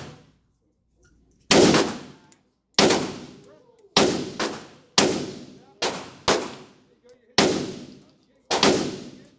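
A string of about eight to nine AR-15 rifle shots, fired roughly a second apart but unevenly, each a sharp crack followed by a quickly fading echo.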